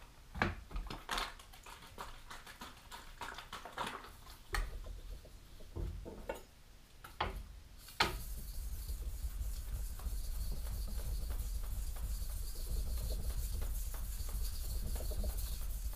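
Kitchen knife being sharpened on a Shapton Pro 1500-grit whetstone: a few scattered knocks and clicks at first, then from about eight seconds in a steady scraping of steel rubbing on the stone.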